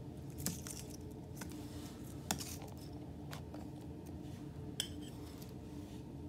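A handful of sharp, separate clicks and taps of metal feeding tongs against a clear plastic feeding dish, the loudest about two seconds in. A faint steady hum sits underneath.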